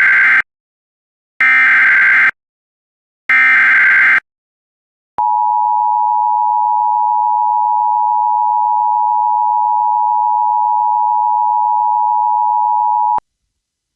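Emergency Alert System SAME header: three short bursts of warbling digital data tones, about two seconds apart, the first already under way. They are followed by the EAS two-tone attention signal (853 and 960 Hz), a steady dual tone held for about eight seconds that cuts off abruptly. Together they mark the start of an emergency alert broadcast.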